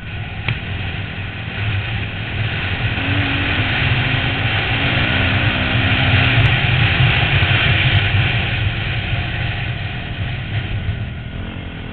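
250cc dirt bike engine running under throttle on a dirt track, with wind rushing over a helmet-mounted camera. It gets louder to a peak about halfway through, then eases off.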